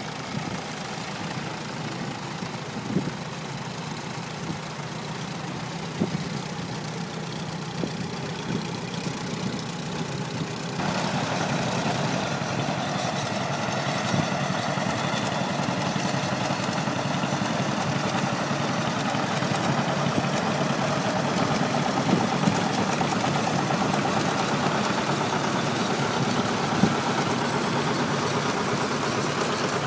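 Engines of vintage tractors, among them John Deere two-cylinder models, running steadily as they drive past one after another. A few short knocks come early on, and the sound gets louder and fuller about eleven seconds in.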